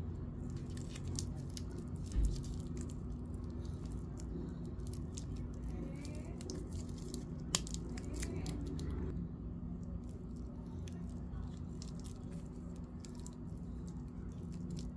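Clear plastic protective film crinkling and crackling as it is picked off a stainless steel watch bracelet, with small clicks from the metal links. There is a low thump about two seconds in and a single sharp click about halfway, over a steady low hum.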